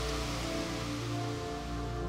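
Slow ambient background music with long held notes, over a steady hiss.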